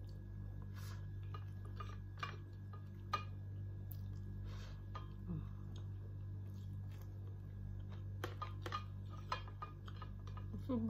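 A person eating with her hands: chewing and mouth sounds with scattered small clicks and a few light clinks of a plate, over a steady low hum.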